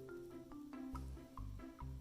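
Background music: short, bouncy notes over a bass pulse about twice a second.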